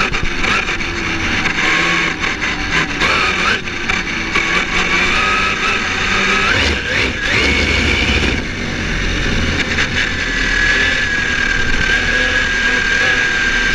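Kyosho MP9e electric 1/8-scale racing buggy's brushless motor and drivetrain whining at speed over road and wind noise. The whine rises sharply about seven seconds in, then holds and slowly sinks in pitch.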